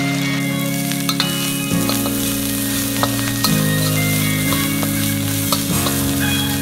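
Food sizzling in hot oil in a wok while a metal spatula stirs it, with scattered clicks and scrapes of the spatula on the wok. Soft background music with slowly changing held chords runs underneath.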